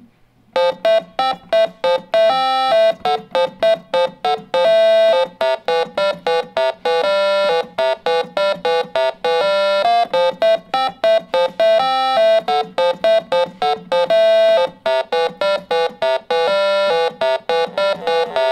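OKAY Synth, a small DIY analog synthesizer kit, played on its keys: a fast melody of short notes sounded one at a time, starting about half a second in.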